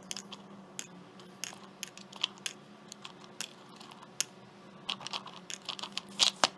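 Pecan halves dropped one at a time into a metal jar lid on a digital kitchen scale: irregular sharp clicks and taps, with a quick cluster of louder ones near the end.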